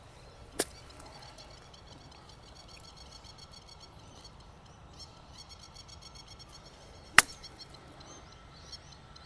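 A golf iron strikes the ball once on a punched recovery shot from a poor lie: one sharp crack about seven seconds in. There is a fainter click near the start, and steady chirping in the background.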